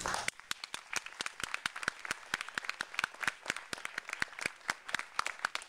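Audience applauding: many quick, irregular, overlapping hand claps, starting a moment in.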